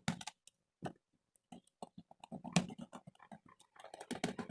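Irregular clicks and knocks of an electrical switch and its cover being handled and fitted, with a denser patch of rustling and knocking near the end.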